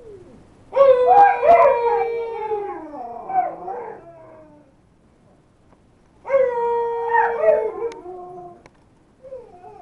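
Two Alaskan malamutes howling together, their voices overlapping. A long bout starts just under a second in and slides down in pitch over about three seconds. A second, shorter bout starts about six seconds in.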